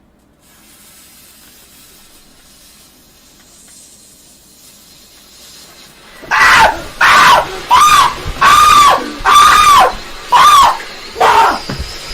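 A faint steady hiss, then about six seconds in a person starts screaming: around eight loud, short screams in quick succession, each rising and falling in pitch.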